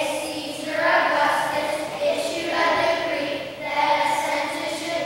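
Children's choir singing together, in phrases with short breaks between them.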